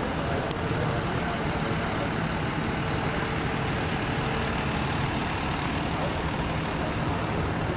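Steady rushing noise of water gushing from a burst water main, with a low rumble underneath.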